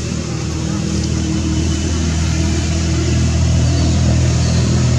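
An engine running steadily with a low hum, its pitch shifting slightly about halfway through.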